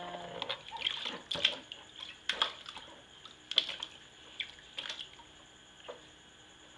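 Water splashing in a plastic tub as a baby moves about in it: a string of separate small splashes and drips, about one a second, growing fainter toward the end.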